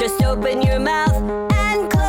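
Upbeat electronic pop song with a steady kick-drum beat, a little over two beats a second, under a bright bouncing melody.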